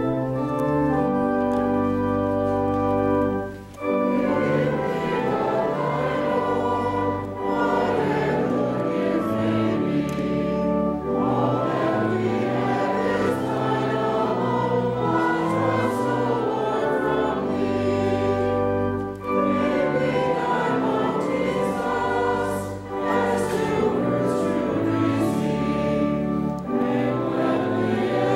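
Organ holding chords alone, then about four seconds in many voices join, singing in church with the organ accompanying, with short breaths between phrases.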